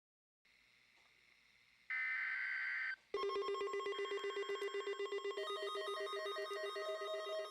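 Synthesized alert tones: a steady electronic beep lasting about a second, then, from about three seconds in, a fast-pulsing, phone-like electronic ring over a held tone, with a simple stepping melody above it.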